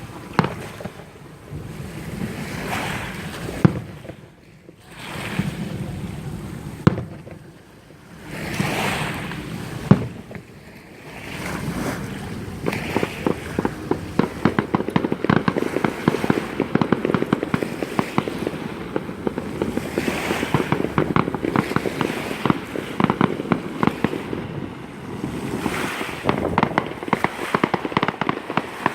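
Aerial fireworks display: a few separate loud bangs over a rumbling wash of sound, then from about twelve seconds in a dense run of rapid crackling.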